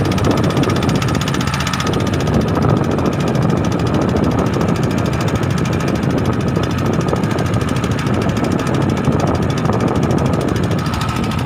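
An engine running steadily and loud, most likely the outboard or inboard motor of a small fishing boat.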